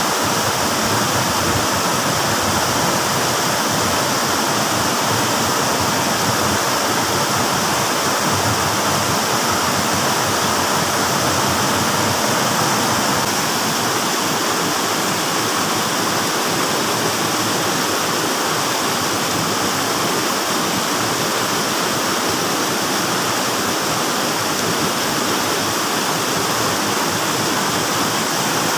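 Whitewater cascading over boulders in a small stream waterfall: a steady, loud rush of water.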